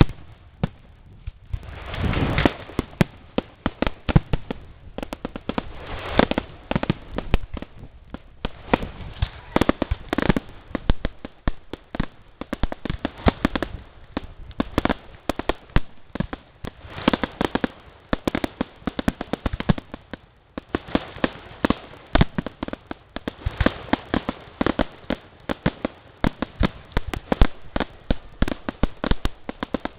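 Fireworks going off: a rapid, irregular string of sharp bangs and crackles, several a second, with louder clusters now and then.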